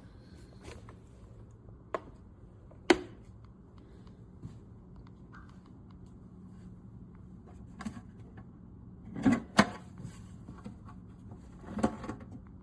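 Scattered sharp clicks and knocks over a low steady hum. The loudest knock comes about three seconds in, and a cluster of them comes near the end.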